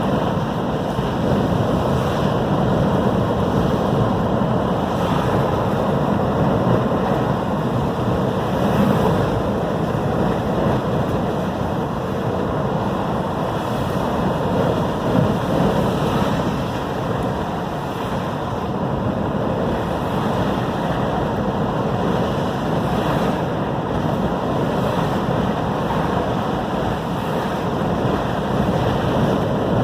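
Strong storm wind blowing across the microphone over heavy ocean surf, a steady rush of noise.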